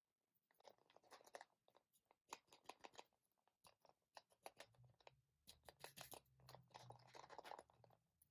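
Thin aluminium foil wrapper of a Kinder Surprise egg crinkling under the fingers as the egg is turned and picked at, in soft clusters of quick crackles, busiest near the start and again in the second half.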